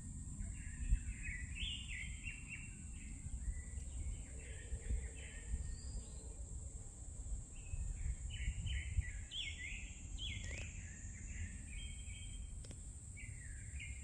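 A songbird singing in several phrases of quick, repeated down-slurred notes, with pauses between phrases. Under it runs a steady low rumble, and a constant high hiss holds throughout.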